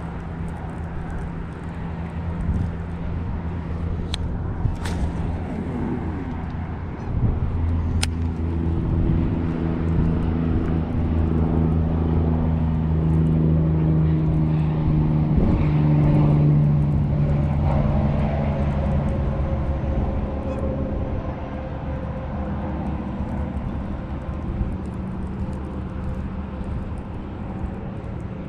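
A motor's low droning hum that grows louder about seven seconds in and then slowly fades, as an engine passing by.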